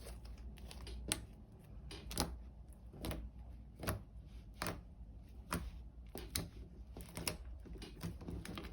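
Homemade glue slime being squeezed and pressed by hand, making sharp clicking pops about once a second.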